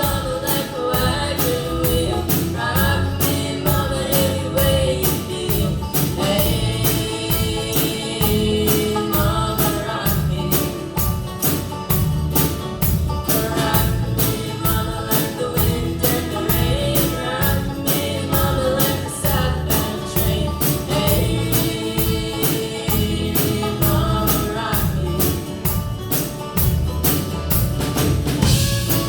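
A band playing a country song: singing over a steady drum beat.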